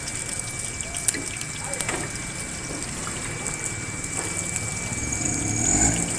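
Egg frying in oil on a large flat griddle, sizzling steadily, with short clicks and scrapes of a metal spatula against the griddle about one to two seconds in.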